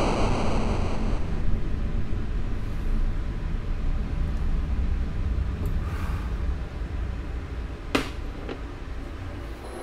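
A low, steady rumble that slowly fades away, with a thin ringing tone dying out in the first second. One sharp tick comes about eight seconds in, with a fainter one just after it.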